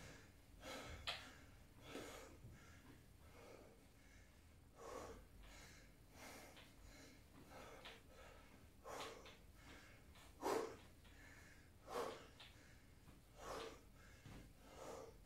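A man's faint, short breaths, one every second or two, as he exerts himself in single-leg hip raises on a floor mat.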